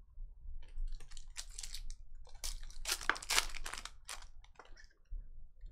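Foil trading-card pack wrapper, a 2022 Panini Certified Football pack, being torn open and crinkled by hand: a run of crackling rips and rustles, loudest about halfway through.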